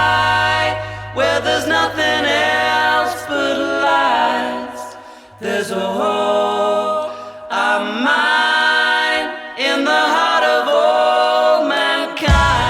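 Song passage of layered wordless vocal harmonies, several voices holding notes in phrases with short breaks, over a sustained low bass note that drops out about halfway; drums and bass come back in right at the end.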